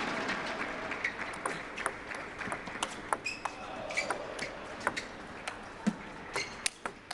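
Table tennis ball in a rally, clicking off bats and table with a sharp tick about every half second, over the faint steady noise of the hall.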